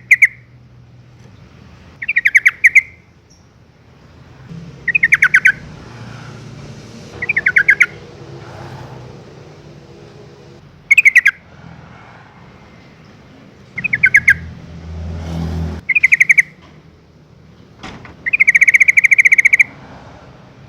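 Yellow-vented bulbul giving its chattering call: about eight short bursts of rapid pulsed notes a few seconds apart, the last one longer. A low steady hum runs underneath, with a brief low rumble about fifteen seconds in.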